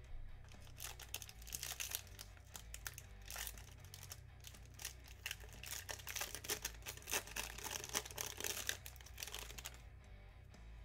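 Gold foil trading-card pack being torn open and crinkled by hand, a dense run of crackling for most of the time, dying away near the end.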